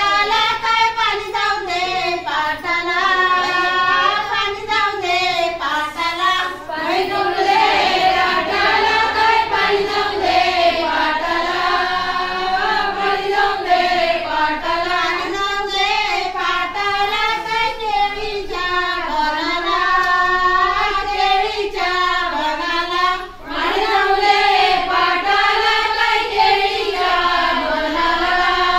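High-pitched female singing: a continuous, melodic song line with only brief breaks, accompanying a fugdi dance.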